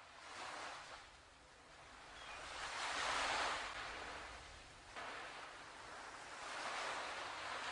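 Ocean surf washing up on a sandy beach, swelling and fading in slow surges, loudest about three seconds in, with one surge starting abruptly about five seconds in.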